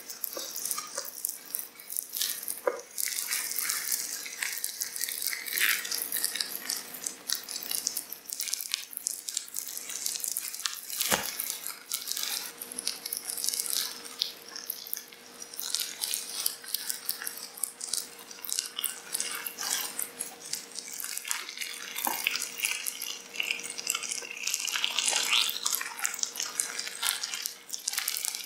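Wet, crackling, dripping sound effects of a slimy creature stirring, with a faint steady hum underneath and one sharp click about eleven seconds in.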